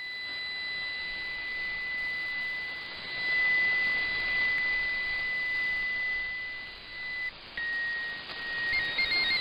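Steady single-tone tuning signal near 2,000 Hz, received off a shortwave broadcast over a hiss of radio static. It marks the switch to MFSK16 and is there for setting the decoder's audio frequency by hand. The tone breaks off about seven seconds in, and near the end the MFSK16 data starts as a warble of quickly stepping tones.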